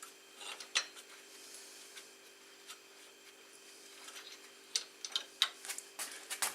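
Scattered light metal clicks and taps as an engine mounting bolt is worked out of a motorcycle frame, coming closer together in the last couple of seconds, over a steady low hum.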